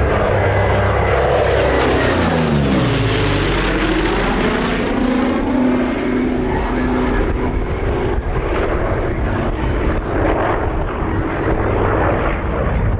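Douglas A-26B Invader's twin Pratt & Whitney R-2800 radial engines passing at close range, their pitch sliding down over the first two to three seconds as the aircraft goes by. The steadier engine drone that follows fades and swells as the bomber climbs and rolls away.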